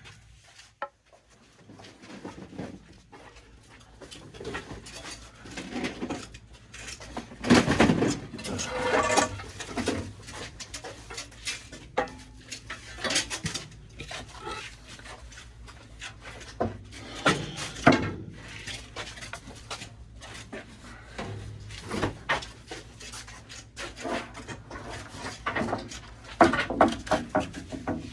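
Irregular knocks, scrapes and clatter of household items and a table being shifted about, with louder bangs about eight, thirteen, eighteen and twenty-six seconds in.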